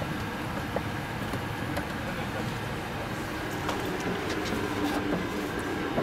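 Steady cabin noise inside an Airbus A380, an even hum and hiss of the aircraft, with a few faint clicks.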